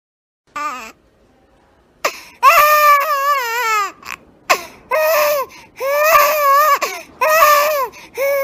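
A baby crying: one short cry just after the start, then from about two seconds in a run of loud, high-pitched wails with wavering pitch, broken by short breaths.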